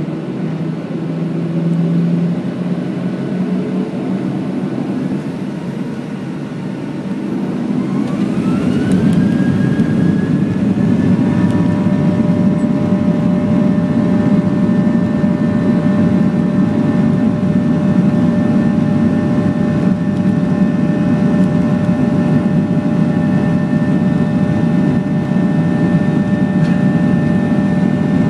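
The Boeing 737-800's CFM56-7B jet engines heard from inside the cabin, spooling up to takeoff thrust. A whine rises in pitch about eight seconds in and then holds steady over a loud rumble as the takeoff roll gets under way.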